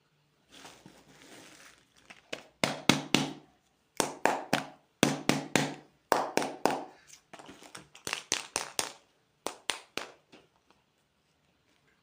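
Hands handling candy packaging: a short rustle, then sharp taps and clicks in quick clusters of three or four.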